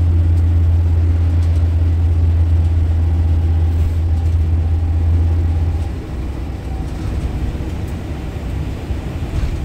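Car driving on a slushy, snow-covered road, heard from inside the cabin: a steady low drone of engine and road noise that drops in level about six seconds in.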